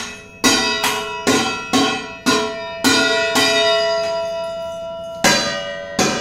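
Stainless steel containers struck repeatedly as a drum, about two hits a second, each hit ringing on with a bell-like metallic tone. After a pause of nearly two seconds while the ringing dies away, one more hit comes near the end.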